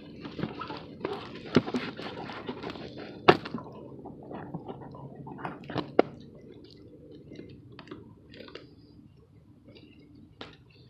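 Small sharp clicks and soft rubbing of plastic lawn mower carburetor parts being handled and pressed together, with the wetted O-ring being worked into its seat. The loudest clicks come about one and a half, three and six seconds in, and the handling grows quieter toward the end.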